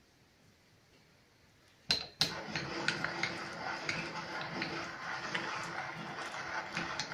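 Electric meat grinder switched on with a sharp click about two seconds in, then running steadily with a constant hum while pork mince is pushed through its sausage-stuffing nozzle into the casing, with scattered small clicks and knocks.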